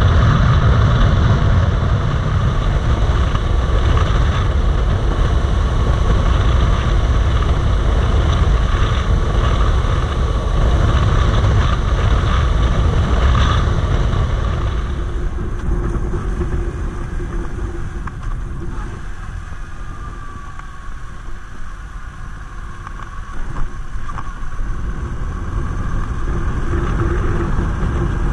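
Yamaha MT-07's parallel-twin engine running under way, with steady wind rush on the microphone. About halfway through, the rumble and wind drop and it goes quieter, with a steady engine hum at lower road speed.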